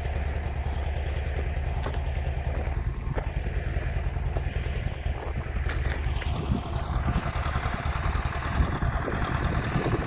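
Farm tractor engine running steadily at low pitch, with rustling footsteps over grass and loose soil in the second half.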